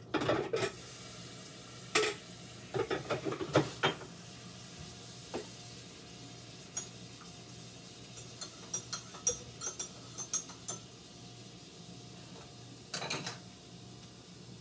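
Kitchen clatter as cups, containers and utensils are handled on a counter: a burst of knocks and clinks in the first few seconds, lighter scattered ticks later and another couple of knocks near the end, over a steady low hum.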